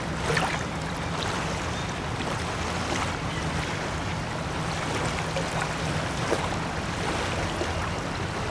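Elevator ambience: a steady low hum under an even rushing noise, with a few faint clicks.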